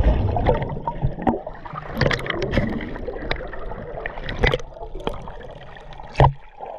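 Water splashing and bubbling around a camera held at the surface while snorkelling, the sound muffled as it dips under and crackling with bubbles as it breaks the surface. There is one sharper, louder splash about six seconds in.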